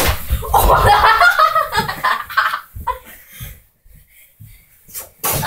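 Children laughing for the first two and a half seconds over low thuds, then quieter rustling and a couple of sharp thumps near the end, from rough play on a bed.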